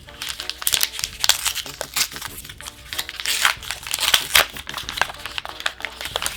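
Plastic packaging of a trading-card prerelease box crinkling and crackling as it is handled and pulled open. It is a dense run of sharp crackles with a few louder snaps, and it stops abruptly near the end.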